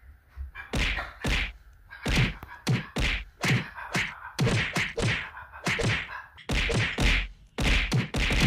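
A quick run of punch-like whacks, about two to three a second, starting about half a second in, as a man's hands and a Boston Terrier's front paws trade blows in play boxing.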